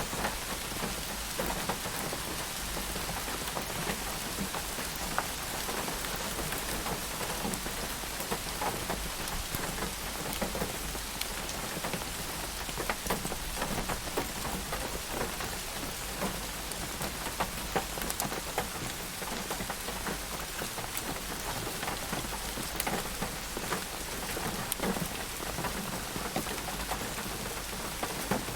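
Steady rain falling, with many individual drops pattering on a surface throughout.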